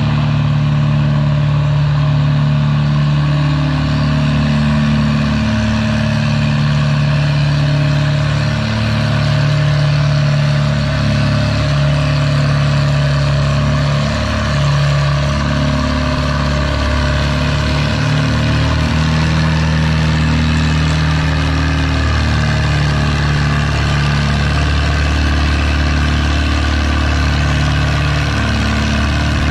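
Antique farm tractor engine running steadily under load while pulling a weight-transfer sled slowly down the track.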